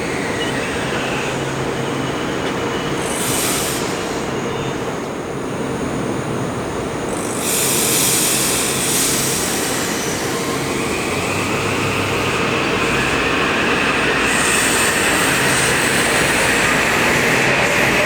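A passenger train passing at speed on the line: a loud, continuous rush of wheels on rail, with a few brief high hisses and a whine that rises in pitch from about halfway through.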